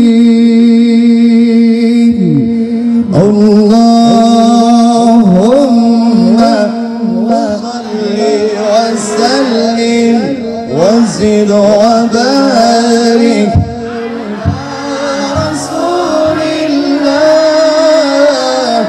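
Male voices in melismatic Arabic-style vocal chanting through a PA system. One voice holds a long steady note that drops out about two-thirds of the way through, while another winds ornamented runs above it.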